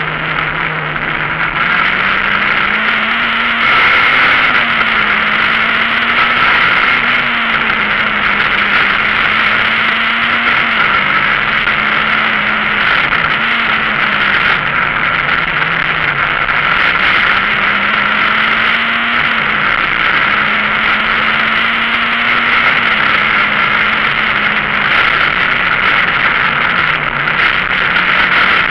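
Citroën Saxo VTS rally car's four-cylinder engine driven hard, heard from inside the cabin: the revs climb and drop again and again through the bends, over a loud steady din of engine and road noise.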